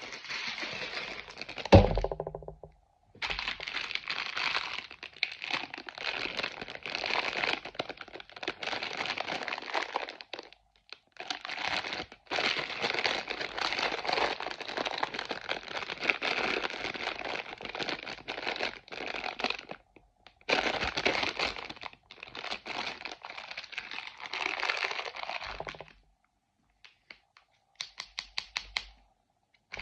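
Crinkly packaging wrapper being handled and torn open by hand, crackling in long stretches with short pauses. A sharp knock about two seconds in is the loudest sound, and a few quick clicks come near the end.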